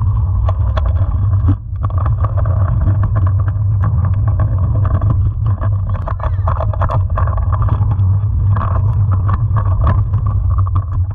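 Small hard wheels rolling over concrete, a loud steady rumble with scattered clicks and knocks as they cross joints and rough patches, picked up close to the ground.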